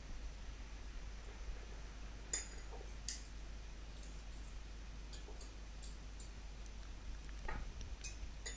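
Scattered light metallic clicks and scrapes from a hand-held garlic press as a knife scrapes crushed garlic out of it into a small bowl.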